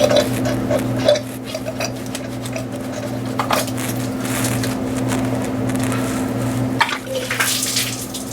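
Coolant hose being worked off the thermostat housing: scattered metallic clinks and scrapes of hand tools and the hose clamp, with a little antifreeze running out. A steady low hum lies underneath and stops near the end.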